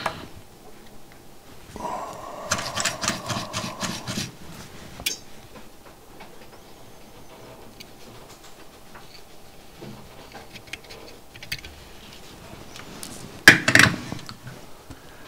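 Small handling sounds from soldering at a workbench: a rubbing, clicking stretch a couple of seconds in, light quiet clicks and rubs through the middle, and a short clatter near the end as the soldering iron goes back into its metal stand.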